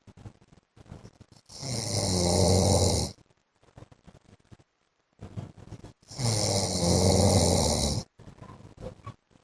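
A man snoring in his sleep: two long, loud snores about four and a half seconds apart, each lasting about a second and a half, a low buzz with a rasping hiss. Faint clicks come between the snores.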